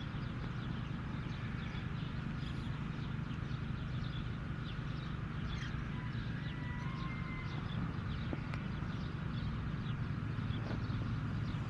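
Pigeon loft sounds: a steady low hum with many short faint chirps and scratches over it, and a brief whistle-like call about six seconds in.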